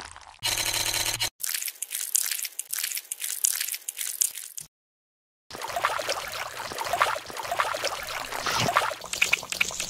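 A brief steady buzzing sound effect, then a long stream of small wet crackles and crunches, ASMR-style chewing and squishing foley. The crunching stops for under a second about halfway through, then carries on.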